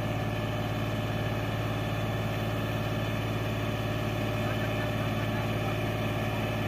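John Deere tractor's diesel engine running steadily as it hauls a loaded soil trailer up an earth mound.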